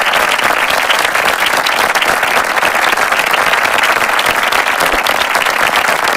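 Continuous applause at an even level, a dense crackle of many hands clapping.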